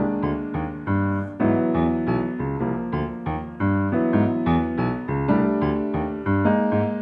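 Solo piano playing: chords over low bass notes, with new notes struck several times a second.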